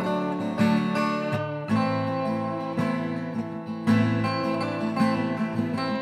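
Background music: acoustic guitar playing, with plucked and strummed notes.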